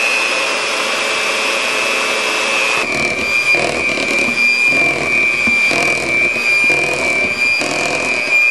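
Electric mixer running steadily in cake batter, with a constant high whine. About three seconds in, the sound starts to swell and dip roughly once a second as the beaters work through the batter.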